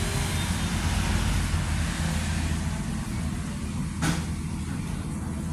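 A motor vehicle's engine running steadily, a low drone with no rise or fall in pitch. A single sharp click about four seconds in.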